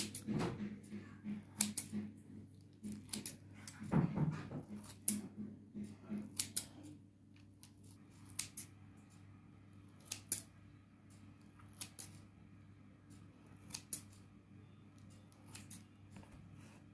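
Kitchen scissors snipping slashes into the top of raw dough rolls, a sharp click every second or two.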